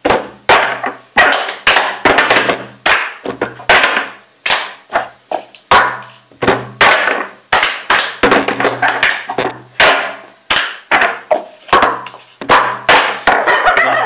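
Several people playing a cup-clapping game: hand claps mixed with plastic cups knocked and set down on a cloth-covered table, a quick run of sharp claps and knocks at about two to three a second.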